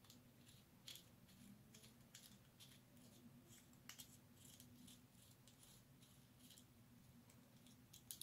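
Near silence with faint, scattered small metallic clicks and ticks: a steel M3 bolt being unscrewed with a small hex key from a brass threaded insert pressed into a 3D-printed plastic part.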